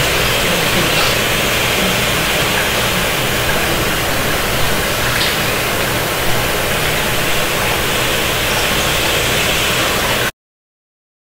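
Steady rushing noise with no clear pitch, cutting off abruptly about ten seconds in.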